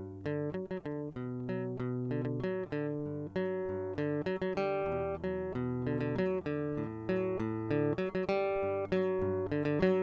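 Acoustic guitar music: a steady flow of plucked notes that ring and fade over lower, longer-held bass notes.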